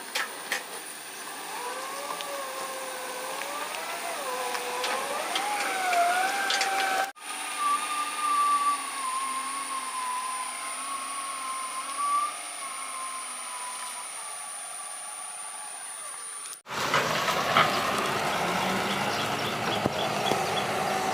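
Excavator engine and hydraulic whine, the pitch gliding up and down as the machine works, in three clips cut together. The last clip, about three-quarters of the way in, is louder and fuller, with a heavier engine sound.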